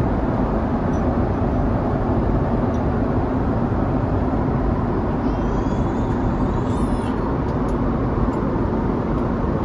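Steady airliner cabin noise in flight: the low, even rush of the engines and airflow, with no change in level.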